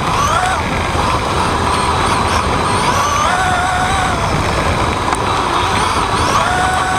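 Onboard sound of an off-road RC buggy racing on a dirt track: a whine from its motor and drivetrain that rises and falls with the throttle every couple of seconds, over a steady rush of tyre and wind noise.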